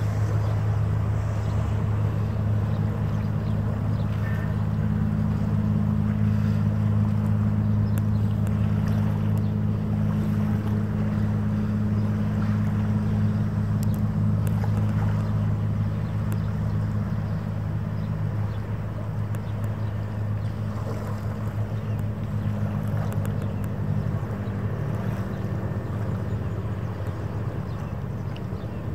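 Marine engines running in a steady low drone, with several held low tones, easing off a little in the second half.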